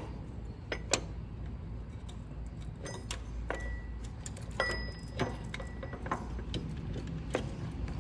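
Irregular light metallic clicks and taps as the throttle cable is fitted to the lever linkage of a diesel injection pump, over a low steady hum.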